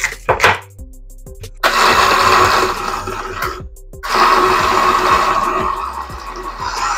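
Countertop blender running on chunks of beetroot, mango, pineapple, carrot and ginger for juice. It runs for about two seconds, stops briefly, then starts again and keeps going. A couple of short knocks come just before it starts.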